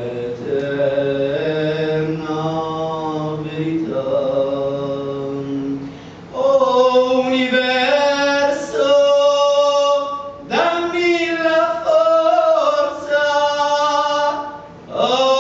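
A man's solo voice singing a devotional Indian bhajan in long, held, chant-like notes. He pauses briefly about six and ten seconds in, and sings louder after the first pause.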